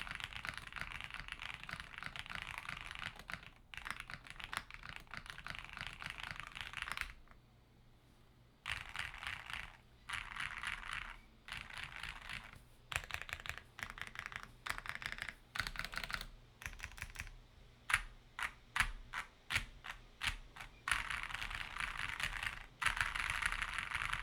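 Typing on a mechanical keyboard with lubed and filmed Autumn Rain (Speechless) switches, nylon housings, on a polycarbonate plate with PBT keycaps. Fast continuous typing, a short pause, bursts of keystrokes, then a run of separate single key strikes about two a second, and fast typing again near the end.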